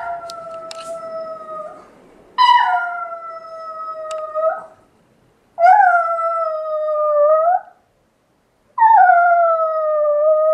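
Yorkshire terrier howling like a wolf: a run of long howls, each about two seconds with a short pause between. Each howl starts on a brief higher note, drops to a steady pitch and lifts slightly at the end.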